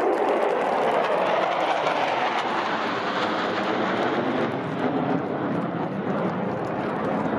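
Jet roar from a formation of F-15E Strike Eagles' twin turbofan engines passing overhead, a steady rumbling roar that slowly drops lower in pitch as the jets move away.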